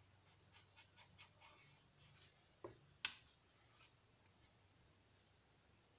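Faint soft scratching of a fine paintbrush stroking colour onto a paper page, with a few small clicks, the sharpest about three seconds in.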